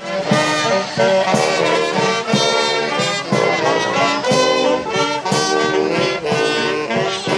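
Marching street band of saxophones, trumpets, trombones, sousaphone and bass drum playing a tune, the drum keeping a steady beat.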